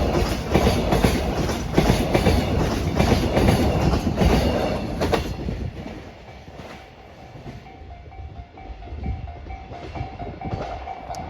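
Koki container wagons of a JR Freight train rolling past, wheels clicking in a steady clickety-clack rhythm over the rail joints, until the last wagon clears about five seconds in and the rumble fades. A level crossing warning bell then keeps ringing in a steady pulsing ding-ding.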